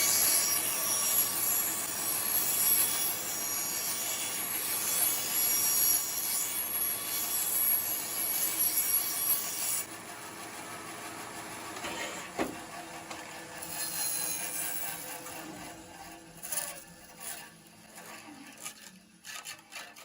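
Bandsaw running with its blade cutting a circle in thin plywood as the disc turns on a screw pivot jig. About ten seconds in the sound drops off sharply and a quieter running hum fades away, with a few knocks near the end.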